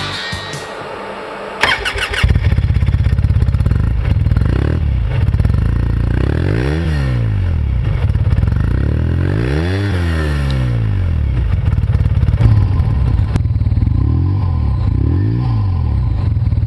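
Supercharged Polaris UTV engine with a custom header and silencer, cranking and catching about two seconds in, then idling with several throttle blips that rise and fall in pitch, the biggest about halfway through.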